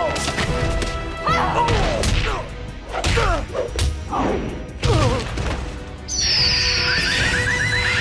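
Cartoon fight with an orchestral score, hits and curving yells and grunts. About six seconds in, a superheroine's sonic scream, the Canary Cry, cuts in loud and high and holds steady with a rapid warbling edge.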